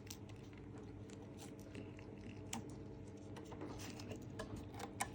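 Faint scattered clicks and light handling noises over a steady low hum.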